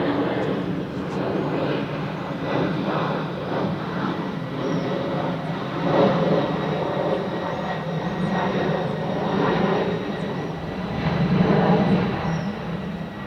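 Airbus A321-211's CFM56 turbofan engines running: a steady rumble with thin high whining tones, swelling louder twice.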